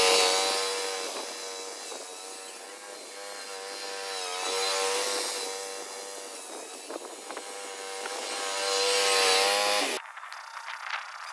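Pump of a NorthStar 41-gallon tow-behind lawn sprayer running with a steady whine while spraying, under a hiss that swells and fades three times. About ten seconds in it cuts off, leaving faint scattered clicks.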